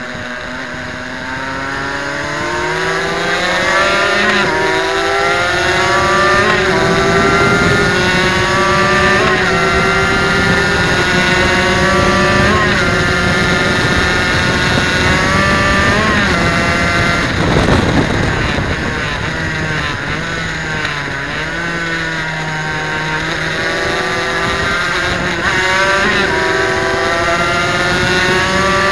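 Suzuki RGV250's two-stroke V-twin engine heard onboard at racing pace, revving hard out of a corner and climbing through several upshifts, each gear change a quick drop in pitch followed by another climb. A little past halfway the revs step down through a few downshifts, then climb again through the gears.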